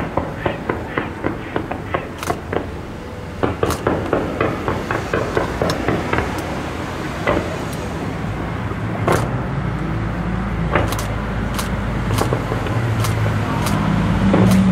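Fireworks going off: a rapid run of crackling cracks, then several separate sharp bangs over a low rumble that grows louder near the end.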